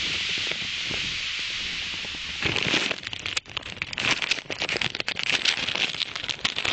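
Steady wind hiss on a phone's microphone. About two and a half seconds in, it gives way to dense crackling and rustling as the phone is picked up and handled, with fingers rubbing over the microphone.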